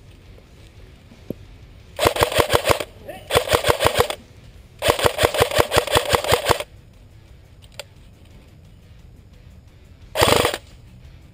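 Airsoft gun firing on full auto at about a dozen shots a second: three long bursts, then a short one near the end.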